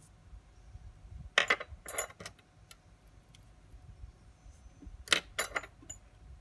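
Small metal objects clinking and rattling against a hard surface in two short bursts, one about a second and a half in and one about five seconds in.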